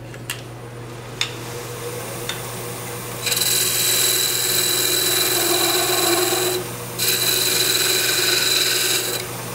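A beading and parting tool cutting a tenon into a wood spindle spinning on a lathe: a hissing, scraping cut in two passes of about three and two seconds, with a short break between. Before the cutting there is only the lathe's low steady hum and a couple of small clicks.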